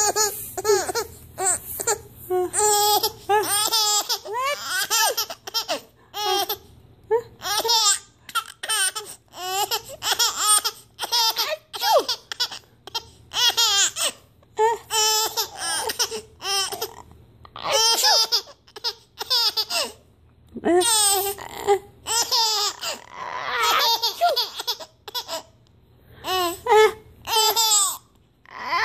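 An eight-month-old baby laughing in repeated bursts of giggles with short pauses between them.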